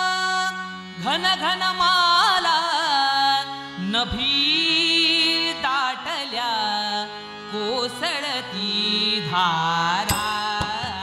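Male vocalist singing a Marathi song in long, ornamented melodic lines over sustained harmonium notes. Sharp drum strokes come in near the end.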